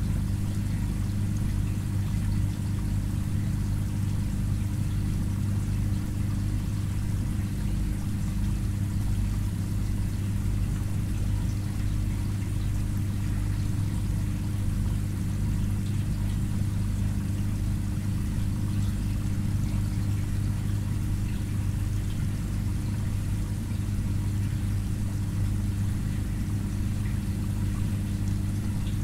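Aquarium filter pump humming steadily, with water running and pouring into the tank.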